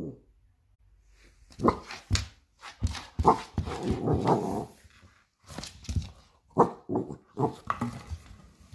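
A dog barking and growling in a series of short bursts, with a longer stretch of growling around the middle.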